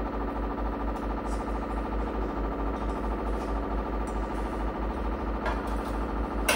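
A steady mechanical hum with a regularly pulsing low drone, with a faint click of cutlery about five and a half seconds in.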